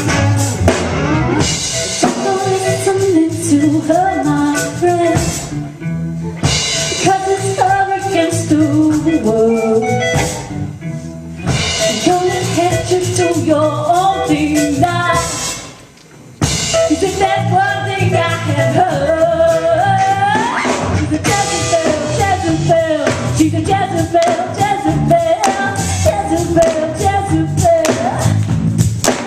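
Live band playing amplified on stage: a woman singing lead over electric guitars and drum kit. The band drops out for about a second just after halfway, then comes straight back in, and a little later the voice slides upward.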